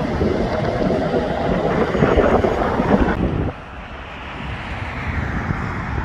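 A tipper road train's trailers rolling past on their many axles, with loud steady tyre and diesel rumble that cuts off suddenly about three and a half seconds in. After that comes a quieter steady rush of wind on the microphone and passing road traffic.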